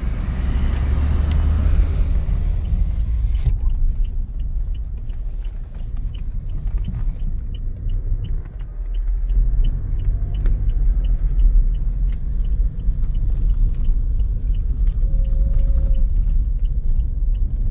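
Car cabin rumble from driving on an unpaved dirt road: a steady low drone of engine and tyres. A hiss of wind and road noise cuts off a few seconds in, after which a faint regular ticking of about two to three ticks a second is heard.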